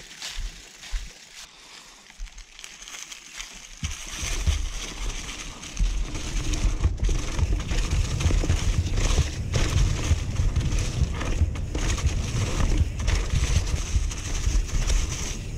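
Mountain bike tyres rolling over dry fallen leaves on a forest trail, with wind buffeting the camera microphone. The first few seconds are quieter, with scattered clicks and rustling. About four seconds in a loud, steady rumble of wind and tyre noise sets in with leaves crackling, and it gets louder again a couple of seconds later as the bike speeds up.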